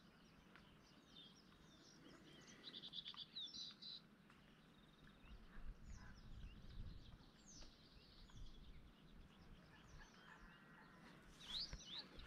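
Faint birdsong from small birds: scattered quick chirps, with a short rapid trill about three seconds in, over a low outdoor hush.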